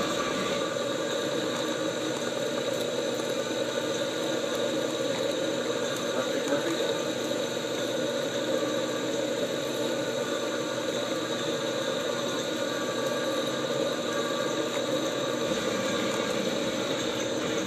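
Metal lathe running steadily while a twist drill in the tailstock bores into the center of a spinning steel bearing cap, cutting off curled chips. This is the center hole for the cap's 3/4-16 threads.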